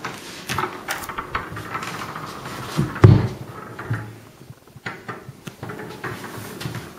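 Scattered clicks and knocks, with one loud, low thump about three seconds in.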